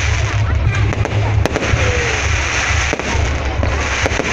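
Fireworks going off in quick succession: a continuous crackle over a low rumble, with sharp cracks now and then.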